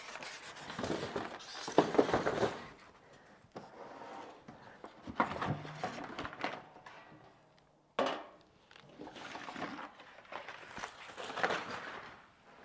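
Unpacking a turkey roaster: styrofoam packing and cardboard scraping and rustling in several separate bouts. The removable metal roasting pan is lifted out of the roaster's base and set down on a stone counter with knocks.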